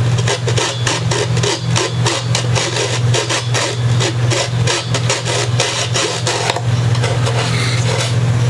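A hand file rasping back and forth on a guitar's wooden body in quick, even strokes, several a second. A steady low hum runs underneath.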